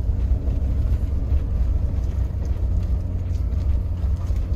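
Mahindra Thar driving on a rough mountain road: a steady low rumble of engine and road noise.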